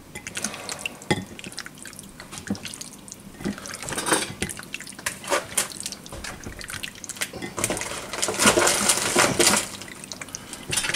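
Bare hand squeezing and kneading raw chicken pieces in a sticky honey marinade: wet squelching and slapping, louder and busier for a couple of seconds late on.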